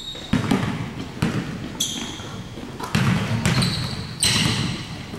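Basketballs bouncing on a hardwood gym floor, a run of irregular thuds, with sneakers squeaking on the court twice.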